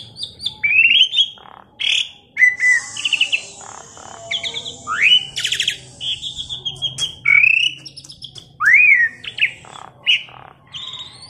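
Asian pied starling singing its varied, chattering song: quick whistled notes and rising slurs mixed with a long harsh rasp about three seconds in.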